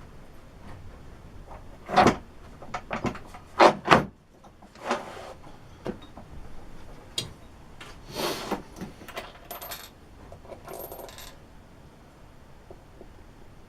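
A string of sharp knocks and clatters from small hard parts being handled and set down, loudest a couple of seconds in and again just before the four-second mark, then scattered lighter ones and a quieter stretch near the end.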